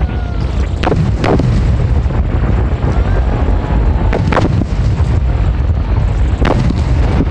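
Aerial fireworks shells bursting in rapid succession during a finale: a constant low rumble of overlapping booms, with sharper cracks twice about a second in, once around four seconds and once near the end, and faint whistles from rising shells.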